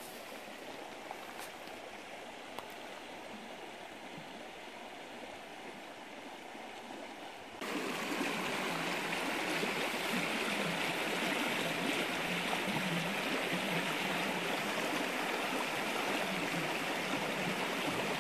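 Shallow boulder-strewn forest stream flowing steadily over stones. About seven seconds in the sound jumps louder and brighter as a faster stretch of water rushing over boulders takes over.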